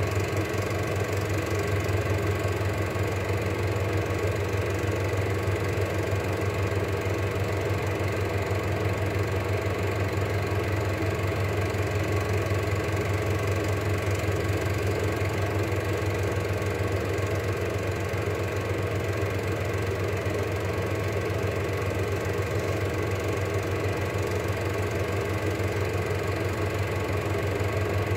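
Cine film projector running: a steady, unbroken mechanical whirr and clatter of its motor and film transport.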